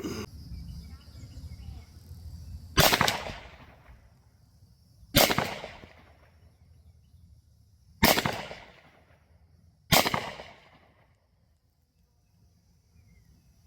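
Four loud shots from a BinTac T9 9mm big-bore PCP air rifle fired without its suppressor, each a sharp crack that trails off in echo, spaced two to three seconds apart. Unsuppressed, the high-pressure air discharge sounds like a regular 9mm firearm.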